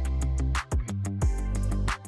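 Background music with a steady beat, heavy bass and plucked guitar-like notes.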